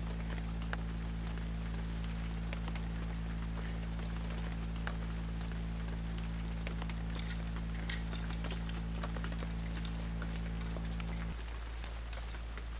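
Steady low electrical-sounding hum that cuts off suddenly about eleven seconds in, over a constant hiss with scattered light crackles.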